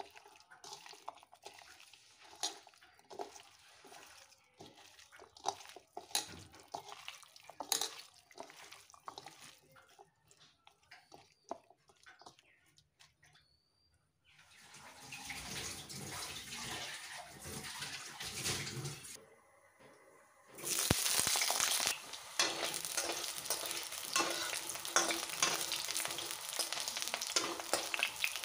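A hand mixing chopped onions and tomatoes into meat pieces in a plastic bowl, with soft, irregular squelches and clicks. About three-quarters of the way in, this gives way to potato slices sizzling and crackling in hot oil in a metal kadai, stirred with a wooden spatula, which is the loudest part.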